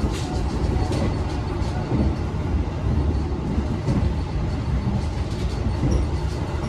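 Ride noise inside a moving passenger train coach: a steady low rumble from the wheels and running gear on the track, with light clicks now and then.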